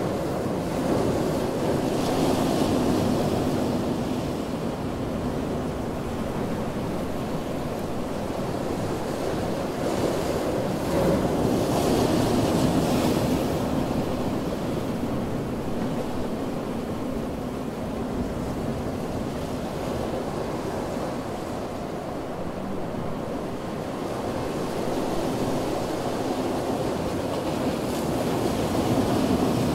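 Ocean surf breaking on a beach: a continuous wash of waves that swells louder a few times, about two seconds in, around twelve seconds in and near the end.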